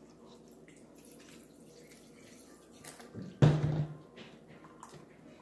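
Wet slime being worked with activator in a container: small sticky clicks and drips, with one louder thump a little past halfway.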